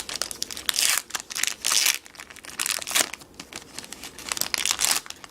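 Foil wrapper of a Magic: The Gathering booster pack crinkling and tearing as it is ripped open by hand, in irregular bursts of sharp crackles.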